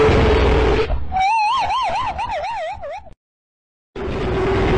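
Siren sound effect warbling, its pitch swinging up and down about three times a second, after about a second of rushing noise with a steady drone. The sound cuts out to dead silence for nearly a second, then the noise and drone come back.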